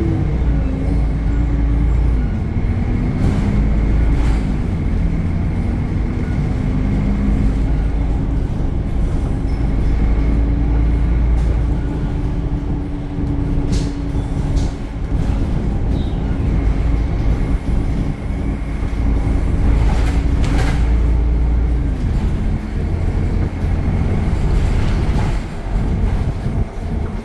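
Temsa Avenue LF city bus, with its DAF Euro 5 diesel engine and ZF automatic gearbox, running on the move and heard on board: a heavy low rumble with a drone that drops in pitch a couple of times, a steady high whine above it, and a few short knocks.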